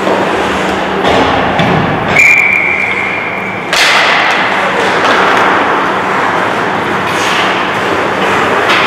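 Ice hockey game play in a rink: skates scraping the ice and sticks on the puck over a steady low hum. About two seconds in a single steady high tone sounds for about a second and a half, and then the noise turns suddenly louder.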